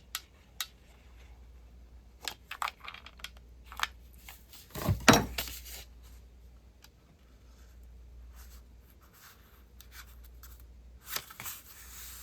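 Paper being handled while a journal page is glued: short rustles, scrapes and small clicks, with one louder rustling burst about five seconds in.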